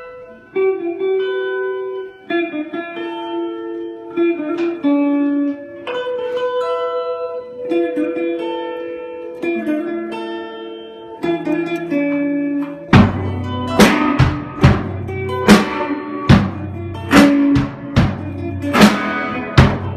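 Electric guitar playing a melody line of single ringing notes. About thirteen seconds in, a drum kit comes in with loud drum and cymbal hits, and the band plays together.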